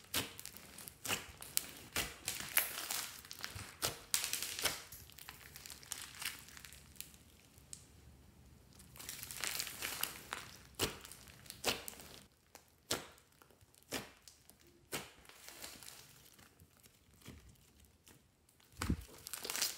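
Hands kneading and squeezing a large lump of fluffy slime with beads and clay mixed in, giving irregular sticky crackles and pops. The crackling thins to scattered pops for a few seconds in the latter half.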